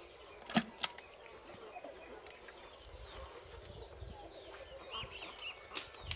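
Small birds chirping, with many short, quick calls, most of them in the second half. A couple of sharp clicks or knocks come about half a second in, and one more near the end.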